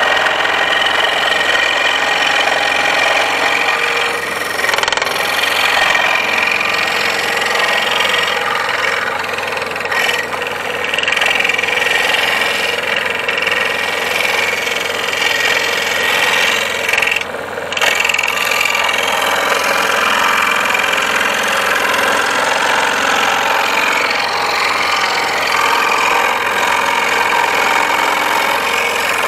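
Makita scroll saw running and cutting wood, its blade stroking up and down in a steady loud chatter as the piece is fed and turned. The sound dips briefly about seventeen seconds in.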